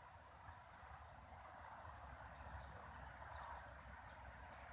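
Near silence: faint outdoor background with a thin, high, rapidly pulsing insect trill that stops about two seconds in.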